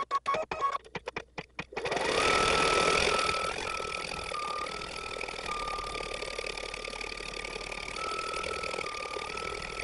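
Baby Lock Intuition embroidery machine stitching at triple playback speed: choppy stop-start for the first couple of seconds, then the motor spins up with a rising whine about two seconds in and runs on steadily in a high whine that steps slightly up and down in pitch.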